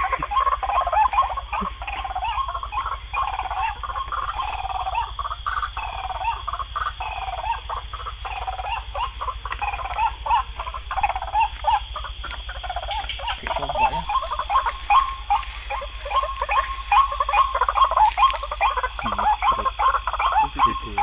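Frogs calling in a dense chorus of short, rapidly repeated croaks, over a steady high-pitched buzz; the calls grow louder near the end.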